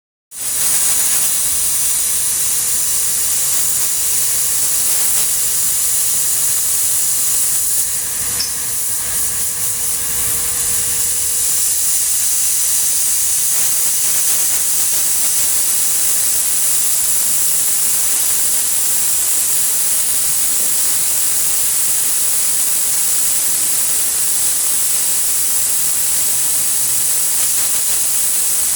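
Steady, loud hiss of compressed air jetting from a paint spray gun, with a faint steady tone under it for the first ten seconds or so.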